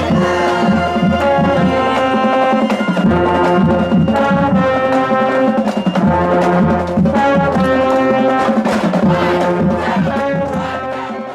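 Marching band playing: brass holding chords over a steady drum beat, fading out near the end.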